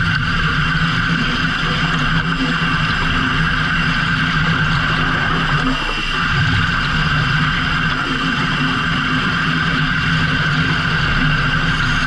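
Fishing boat engine running steadily, with a brief dip about six seconds in.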